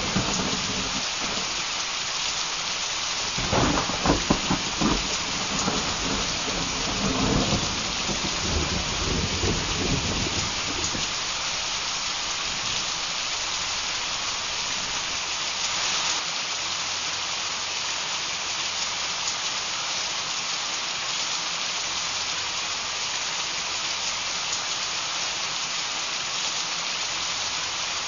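Heavy downpour, a steady hiss of rain. Thunder rolls through it from about three to eleven seconds in, loudest around four seconds.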